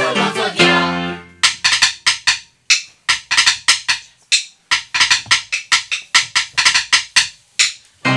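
Music with singing stops about a second in. Then a drum is struck with a pair of wooden sticks in quick, sharp strokes, several a second, in short rhythmic phrases broken by brief pauses. A song with music starts again at the very end.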